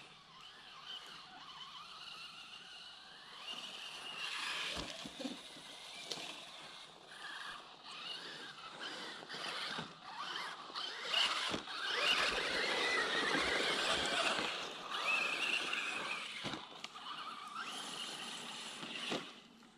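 Traxxas Slash 4x4 RC truck driving hard on a dirt track, heard from on board: its electric motor and gears whine, rising and falling in pitch with the throttle, over a hiss of tyres on loose dirt. Several sharp knocks as the truck hits bumps and landings, busiest in the middle of the run.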